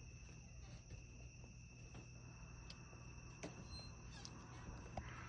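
Faint, steady chorus of night crickets trilling in two even high tones, with a few soft clicks. No bobcat scream is heard.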